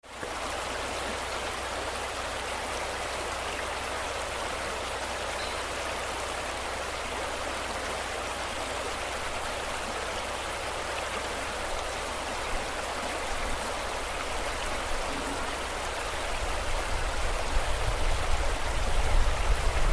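Steady rushing noise, like running water or rain, with a low rumble that builds and turns uneven over the last few seconds.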